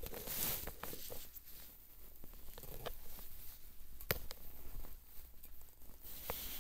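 Small clicks, taps and scrapes of a glass wine bottle being handled with a metal wine accessory at its neck, with the sharpest click about four seconds in.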